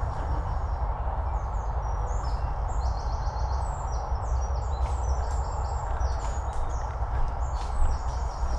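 Footsteps and brushing through dense undergrowth over a steady low rumble of wind on the microphone, with many short, high bird chirps.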